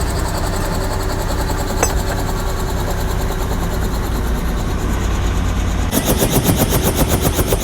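Helicopter cabin noise in flight: a steady engine and rotor drone. About six seconds in the rotor sound changes to a fast, loud chopping beat.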